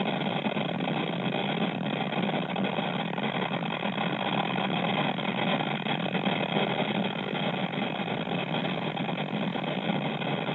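Steady road and engine noise inside a car moving at highway speed: an even, unchanging rush with a faint steady whine over it.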